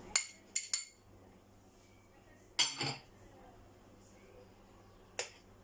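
A few scattered clinks and knocks of a cooking utensil against cookware, the loudest a short clatter about two and a half seconds in.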